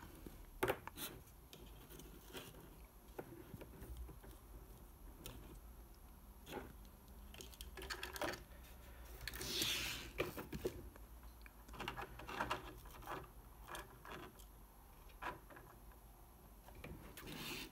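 Light plastic handling noises: scattered clicks, taps and short scrapes as a 3D-printed plastic roll cage is fitted onto an RC car chassis, with one longer scraping rustle a little before the middle.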